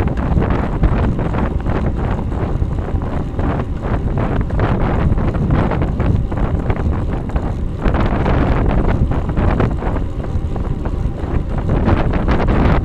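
Wind buffeting the microphone of a bike-mounted camera on a road bicycle riding at about 32–35 km/h: a loud, steady rushing roar that wavers slightly in strength.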